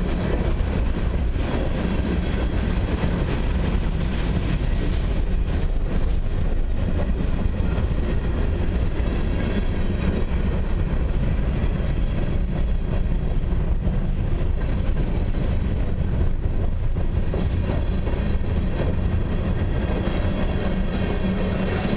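Freight cars of a long mixed and autorack train rolling steadily past, wheels running on the rails.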